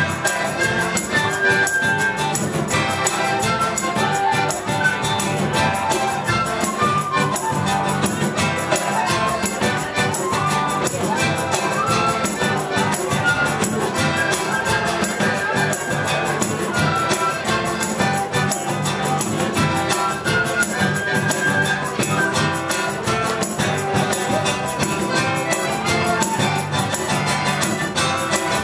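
Live Latin band playing an up-tempo piece: congas, large bass drums and cymbals keep a steady rhythm under a flute and horn melody.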